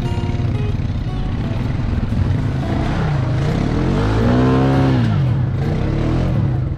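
Quad bike engine running steadily, then revving up and easing back down again about three to five seconds in.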